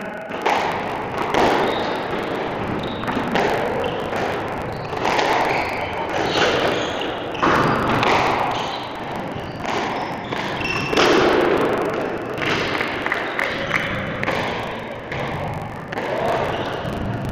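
Squash rally: the ball struck hard by the rackets and thudding off the court walls in a quick irregular run of sharp hits.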